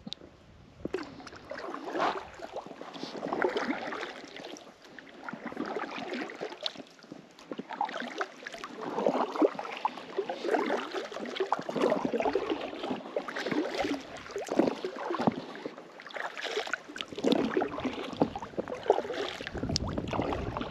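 Kayak paddle strokes in the water beside an inflatable kayak: splashing and swishing that swells and fades in a steady rhythm of about one stroke every second or two, with an occasional light click.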